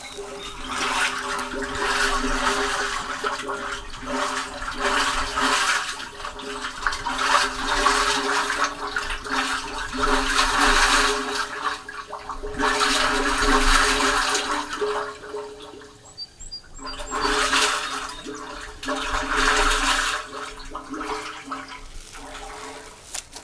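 Sewage rushing and gurgling up inside a sewer manhole that is running full but not yet overflowing, in surges that swell and ease every few seconds, over a steady low hum.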